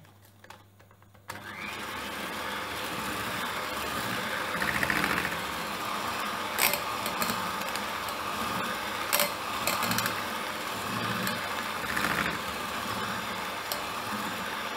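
Electric hand mixer switching on about a second in and running steadily, its twin wire beaters whisking flour into chiffon cake batter in a bowl, with a few brief clicks.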